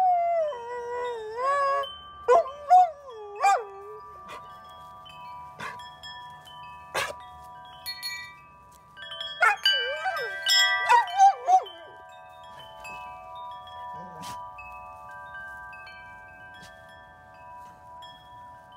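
A golden retriever howling along to metal tube wind chimes that she knocks with her muzzle: the chimes clank and ring while her howl wavers up and down, in two spells, at the start and again around ten seconds in. After that the chimes ring on and slowly fade.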